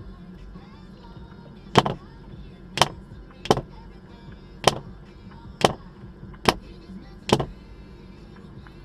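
Seven sharp clicks, a little under one a second and not quite evenly spaced, over a steady low rumble from a moving car.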